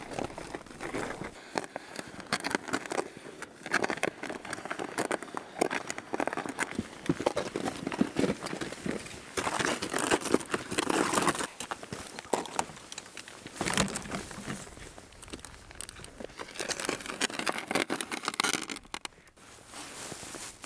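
Boots crunching through snow at a walking pace, with a loaded plastic sled scraping along the snow track behind. The crunching drops away briefly near the end.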